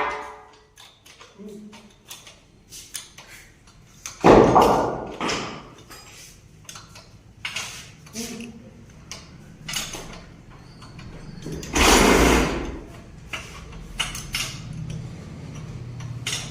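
Scattered metal clanks and knocks as parts of a power loom are handled and taken apart, with two louder, longer clatters about four seconds in and again about twelve seconds in.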